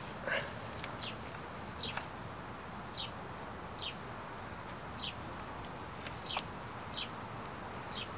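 A bird calling over and over: short, high chirps that fall in pitch, about one a second, over a steady background hiss.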